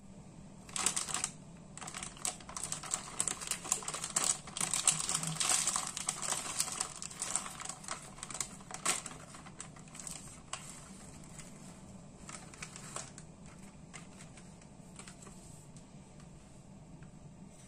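Thin plastic wrapper of a pack of rice crackers crinkling and crackling as hands open and handle it. It is a busy run of sharp crackles for the first nine seconds or so, then only scattered light clicks.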